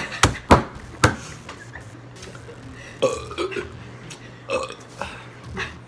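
A person burping after gulping carbonated Sprite: a quick run of short, loud burps in the first second, then a few quieter ones later.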